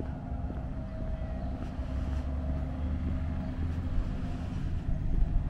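An unseen motor vehicle's engine running, a steady low rumble with a held drone, growing gradually louder.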